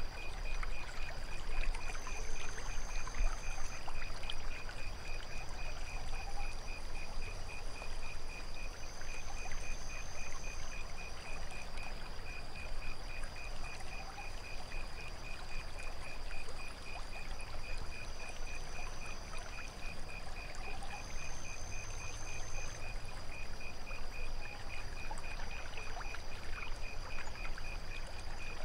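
Night ambience of water trickling steadily, with crickets chirping in rapid, even pulses and a constant high insect trill. A still higher insect buzz comes in short spells three times, and a faint short rising call recurs about every seven seconds.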